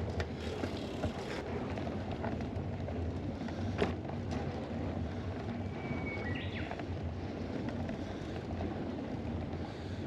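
Steady rumble of wind on the microphone, with a sharp click about four seconds in and a short bird call about six seconds in.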